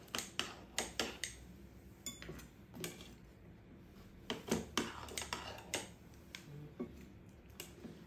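Kitchen scissors and a metal knife cutting a cheese pizza on a ceramic plate: a run of light clicks, taps and scrapes of metal on the plate, thickest in the first second and again around the middle.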